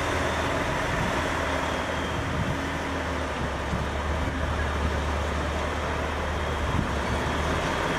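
Truck engine running steadily: a low rumble under an even wash of road noise that neither rises nor falls.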